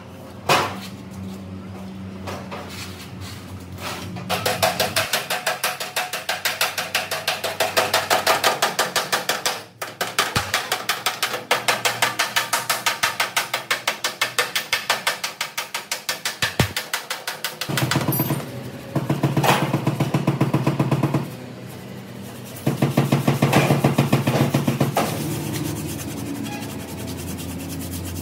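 A hand tool rubbing back and forth on metal in rapid, even strokes, about five a second, in four runs with short pauses between them. There is a single sharp knock about half a second in.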